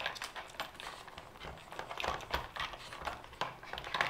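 Hard plastic pieces of a dog puzzle board clicking and knocking irregularly as a terrier noses and paws at its sliding bricks and blocker pieces.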